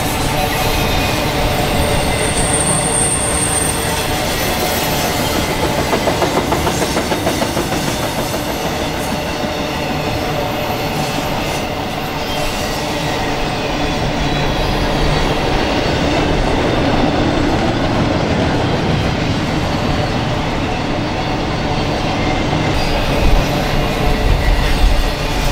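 Intermodal freight train's double-stack well cars and trailer flatcars rolling past: a steady, loud rumble of steel wheels on rail. A brief high wheel squeal comes about two seconds in, and the low rumble swells near the end.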